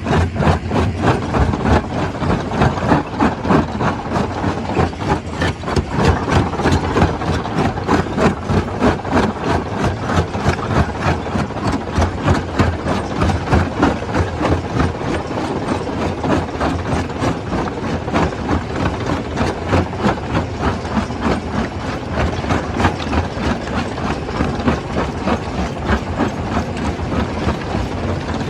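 Stone crusher machine running, with a fast, even pulsing.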